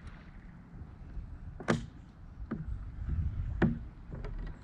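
A few sharp knocks on the plastic kayak, two loud ones about two seconds apart with a fainter one between, over a low steady rumble.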